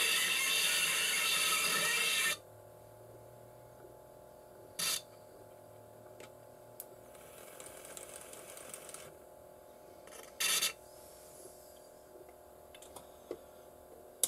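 Stylus tracking an old shellac record, a loud steady crackling rasp that cuts off suddenly about two seconds in. Then it is near quiet, with scattered small clicks and two short bursts of noise as the tone arm is handled.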